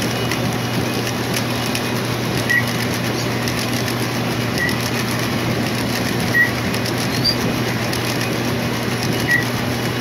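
Lionel O-gauge model freight train rolling past on its track: a steady running noise of the wheels with a low hum and light clicking, broken by four short high squeaks.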